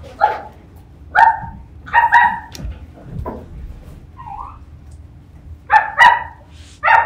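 A run of short, high barks, singly and in pairs, about seven in all.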